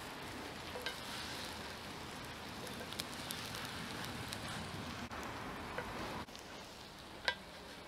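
Ciabatta slices frying in hot olive oil in a preheated cast-iron Dutch oven lid: a steady sizzle with scattered pops and crackles, dropping to a quieter sizzle about six seconds in.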